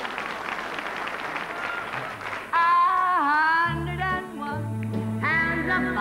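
Audience applauding, then about two and a half seconds in a live show band strikes up, with a voice singing in swooping pitch over a bass line.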